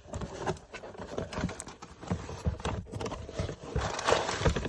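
Cardboard box and paper packaging being handled and opened: irregular knocks, taps and rustles.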